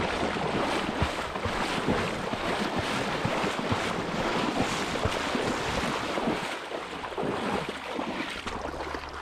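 Water splashing and churning as someone wades quickly through a shallow, fast-flowing river, spray close to the microphone, with many short splashes over the rush of the current and wind buffeting the microphone.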